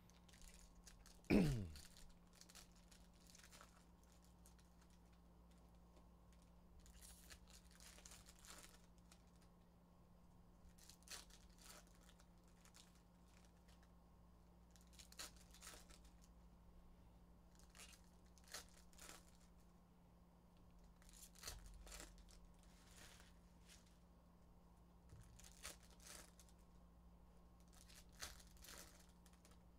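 Trading-card packs being torn open and cards handled: wrappers tearing and crinkling, and cards sliding against each other in soft, brief rustles every second or two. About a second and a half in, a short, loud sound sweeps down in pitch.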